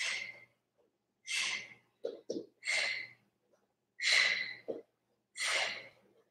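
A woman breathing hard with exertion while working in a plank: about five sharp, hissing breaths in and out, one every second or so, with short gaps of quiet between them.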